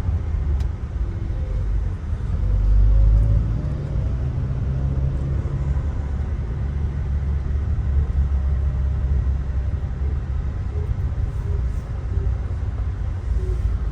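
Steady low road and engine rumble heard inside a moving car's cabin, swelling louder for about a second around two to three seconds in.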